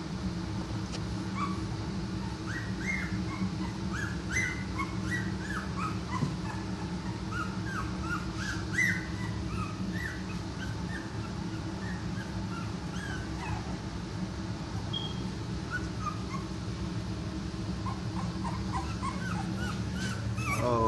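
Two-week-old boxer puppies whimpering and squeaking, many short high cries scattered through, over a steady low hum.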